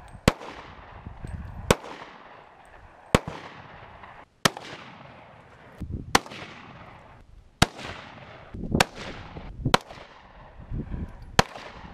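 Nine gunshots from a handgun and a scoped rifle, spaced about one to one and a half seconds apart, each trailing off in a fading echo.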